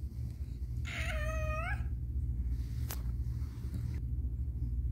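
Persian cat in labor giving one drawn-out meow, just under a second long, rising in pitch at the end, followed a second later by a single sharp click, over a steady low hum.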